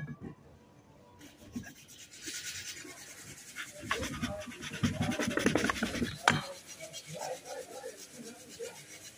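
Hands working the metal parts of a power steering box, rubbing and scraping against each other, loudest in the middle and ending in a sharp click a little after six seconds in.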